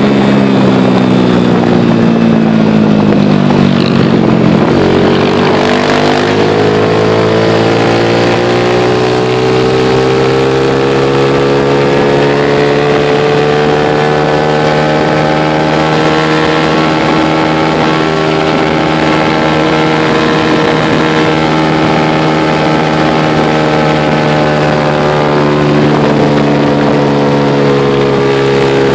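Motor vehicle engine running over a steady low hum. Its pitch drops over the first few seconds, climbs slowly for several seconds after that, and falls again near the end.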